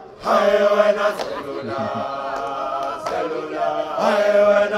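Unaccompanied voices singing a held chord, choir-like. It comes in about a third of a second in, eases a little in the middle and swells again near the end.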